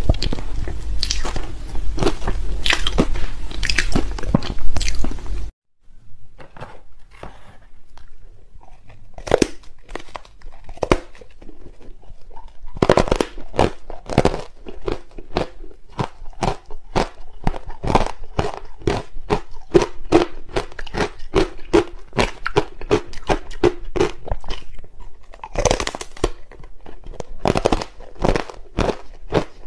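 Close-miked biting and chewing of ice blocks coated in matcha powder: a fast run of sharp, crisp crunches. The sound drops out briefly about five and a half seconds in, then the crunching picks up again.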